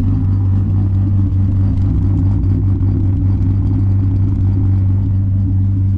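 Cammed Volkswagen VR6 engine idling steadily through its loud aftermarket exhaust, an even, rumbling note with no revving.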